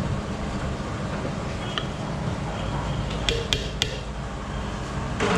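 Steel ladle clinking against aluminium cooking pots while spiced oil is ladled over biryani rice: a faint clink about two seconds in, then three sharp clinks in quick succession a little past three seconds in. A steady low rumble runs underneath throughout.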